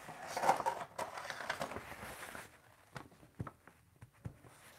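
Paper towel rustling and crinkling as it is picked up and handled, with a few light ticks afterwards.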